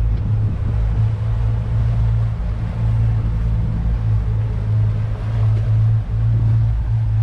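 Twin 300 hp outboard motors running with a steady low drone while the boat is under way, over a hiss of wind and water.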